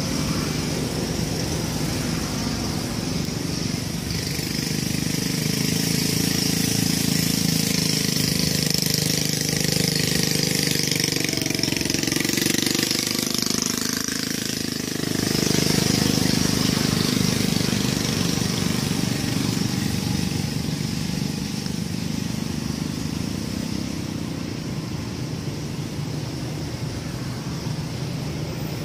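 Steady outdoor background noise: a low, engine-like rumble under a steady high hiss, swelling briefly about halfway through.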